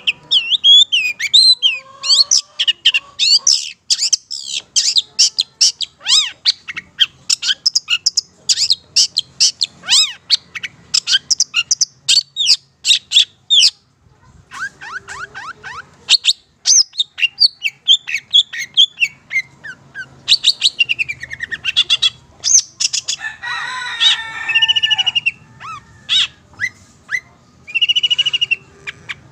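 Long-tailed shrike (Madura cendet) in full song: a loud, fast run of chirps and whistled notes. After a short break about halfway through it sings on, with a harsher chattering burst near the end.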